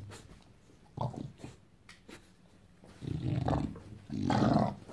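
English bulldog growling in play: a short growl about a second in, then two longer growls near the end, the last the loudest.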